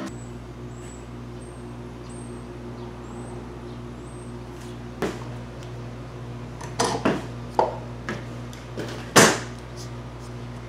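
A bar clamp is loosened and taken off a wooden kydex press, then the pine boards are handled: a few scattered clicks and knocks of metal and wood, the loudest near the end, over a steady low hum.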